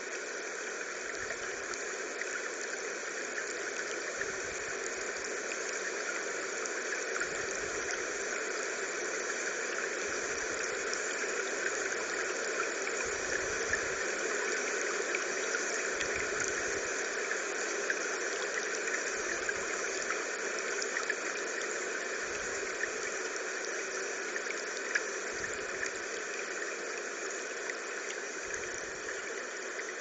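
River water running over a stony bed at the shore: a steady rushing, with faint low rumbles coming and going.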